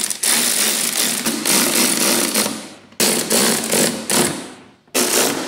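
Cordless impact tool hammering in the coarse-thread screws that hold a mass airflow sensor, in three runs that start abruptly: a long one of about three seconds, a shorter one, and a brief one near the end.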